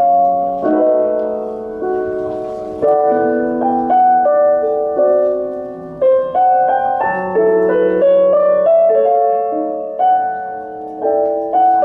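Piano bossa nova, chords and melody notes, played back through hi-fi stereo bookshelf loudspeakers.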